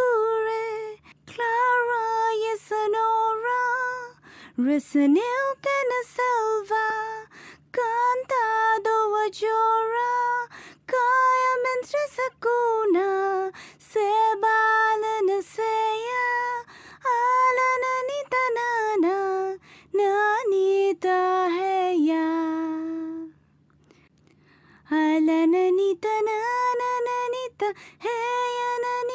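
A woman singing a slow melody in a high voice, in long held and bending notes, breaking off for about two seconds near the end before taking up the next phrase.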